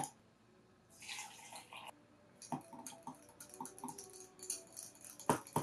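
Hot espresso poured briefly into a glass tumbler about a second in, then a metal spoon stirring and clinking against the glass as it works the coffee into cream cheese, with a sharper clink near the end.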